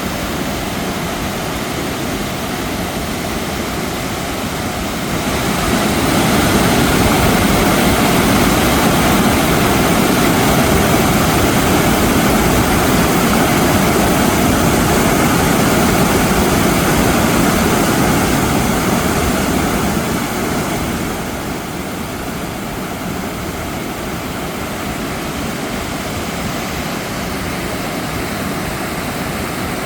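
Rain-swollen mountain stream rushing over rocks after monsoon rain, a steady roar of water that grows louder about six seconds in and eases back again around twenty seconds.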